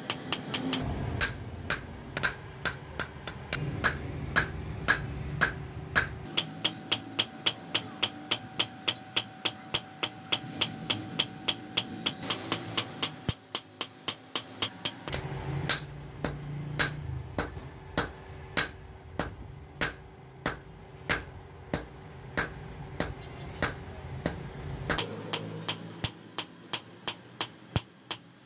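Small hand hammer forging a red-hot steel knife blade on a block anvil: steady, evenly spaced metal-on-metal blows, about two to three a second.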